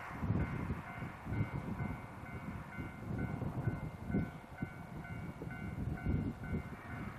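Two DD51 diesel-hydraulic locomotives working together, running as they haul a container freight train toward the listener: an uneven, pulsing low rumble of engines and wheels.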